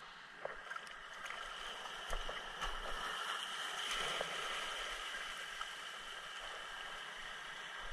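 Sea waves washing and foaming over a flat rocky shelf at the water's edge: a steady hiss of surf that swells a little about four seconds in, with a few faint clicks and splashes.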